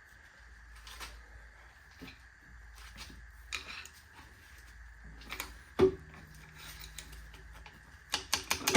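Scattered light clicks and knocks of tools and engine parts being handled during a Hemi V8 teardown, with a sharper knock about six seconds in and a quick run of clicks near the end, over a faint steady high whine.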